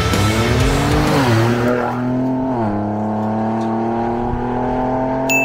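A vehicle engine pulling hard, its pitch climbing and then dropping at gear changes about a second in and again between two and three seconds in, then holding steady. A bright chime sounds right at the end.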